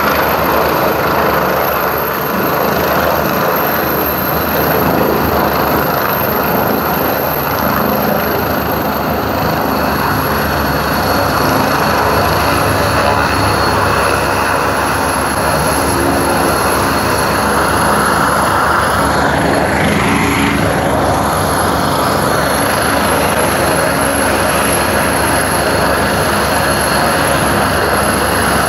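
Helicopter's rotor and engines running loud and steady at close range as it comes down and sets onto a ship's deck. A high whine runs through it and drops slightly in pitch about ten seconds in.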